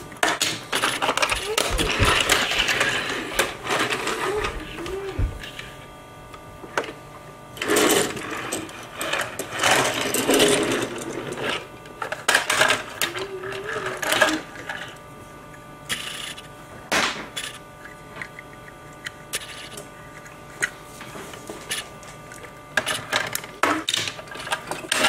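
Plastic toy car-hauler trucks and die-cast toy cars being handled on a tabletop: irregular clicks, clacks and scrapes as the plastic trailer is moved and its ramp opened.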